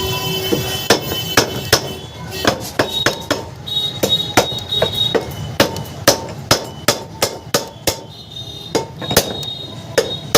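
Hammer tapping repeatedly on a cooler fan motor being reassembled after a bearing change, with sharp, irregular knocks of two or three a second and short pauses between runs.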